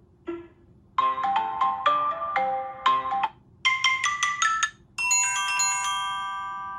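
Mobile phone ringtones playing as short melodies of electronic notes. About five seconds in, a quicker, higher run gives way to a held chord that rings and slowly fades.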